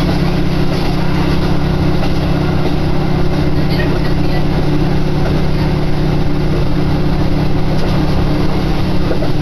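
Diesel railcar running at a steady speed, heard from inside the cabin: a steady engine drone under the even rolling noise of wheels on rail.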